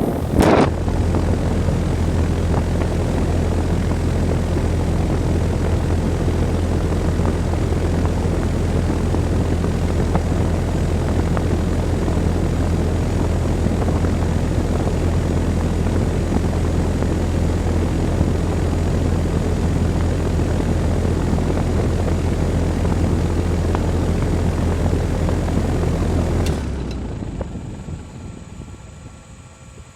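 2008 3-ton Goodman central air-conditioner condensing unit running: compressor humming steadily under the rush of the condenser fan, with a brief bump or two at the start. About 26 seconds in the compressor cuts off abruptly as the unit shuts down, and the fan winds down over the following few seconds.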